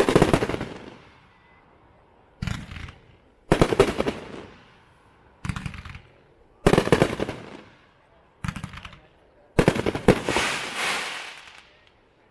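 Hot Fireworks 'Fury Road' aerial cake firing its last shots: about seven sharp bursts at irregular intervals of one to two seconds. Each bang trails off in a crackle, and the final burst, about ten seconds in, crackles longest.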